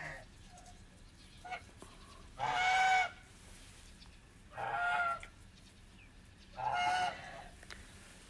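Domestic geese honking: three loud, even honks of about half a second each, spaced about two seconds apart, after a couple of short, quieter calls in the first two seconds.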